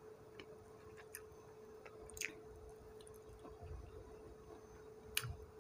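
Faint mouth sounds of someone eating fried mackerel picked off by hand: soft chewing with a few small clicks, the sharpest a little over two seconds in and another near the end, over a faint steady hum.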